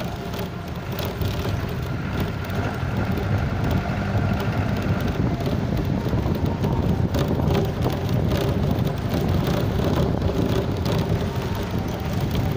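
Vehicle driving along a rough gravel mountain road: a steady low rumble of engine and tyres on stones, with a few knocks from jolts about halfway through.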